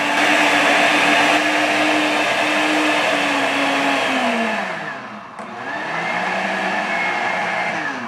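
Two 1200 W Britânia blenders, a B1000 and a BLQ1300 Fortis Turbo, running together at top speed and whirring through kale, pineapple, ginger and water. About four seconds in the motor pitch falls as the speed knob is turned down. The motor then spins back up with a rising pitch, a soft start.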